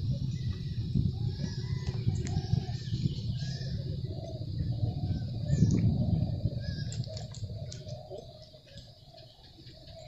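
Birds calling in short, repeated calls over a low steady rumble; the rumble fades away about eight seconds in.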